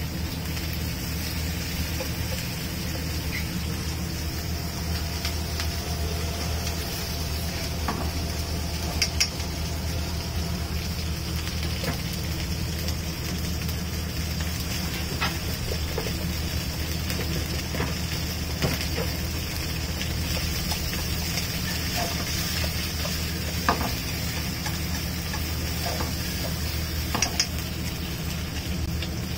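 Steady sizzling of food cooking over a low steady hum, with a few light clinks of dishes and utensils scattered through.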